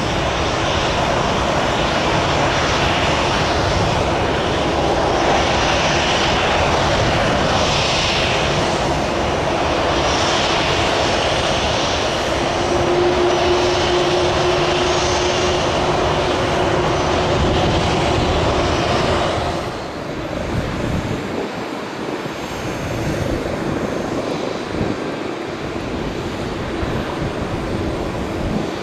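Boeing 787-8 Dreamliner's jet engines running as the airliner rolls along the runway: a loud, steady rush with a faint whine holding for a few seconds in the middle. About two-thirds through the noise drops suddenly to a lower, thinner level.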